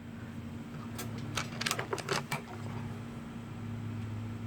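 A quick run of light metallic clicks from a Hatsan Flash .22 PCP air rifle, about a second in and lasting just over a second, as its bolt is cycled to chamber the next pellet between shots. A steady low hum runs underneath.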